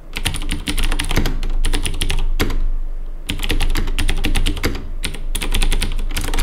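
Typing on a Vortex TAB75 mechanical keyboard with clicky Cherry MX Blue switches: quick runs of keystrokes, with a short pause about two and a half seconds in.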